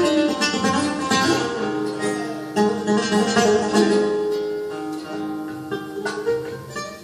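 Two Spanish (flamenco) guitars playing a flamenco-style ballad live, a plucked melody over picked chords.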